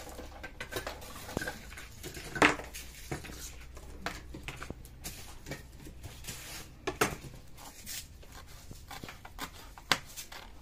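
Kitchen knife chopping leafy green herbs on a plastic cutting board: quick, uneven taps of the blade on the board, with a few louder knocks about two and a half seconds in, about seven seconds in, and near the end.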